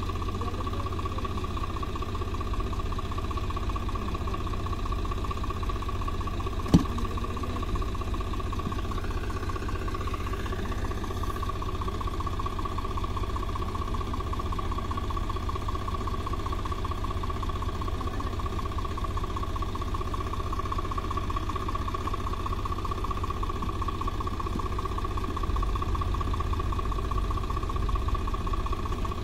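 Tractor diesel engine running steadily, with a constant whine over a low rumble. One sharp knock comes about seven seconds in, and the engine gets slightly louder near the end.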